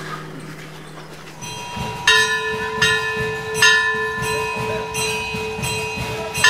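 A bell struck several times, each strike ringing on in several steady tones, over a low rumble. The strikes begin about two seconds in.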